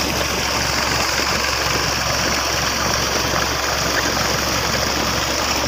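Water gushing steadily from a pump's outlet pipe into a pond, churning the surface, with an engine running steadily underneath.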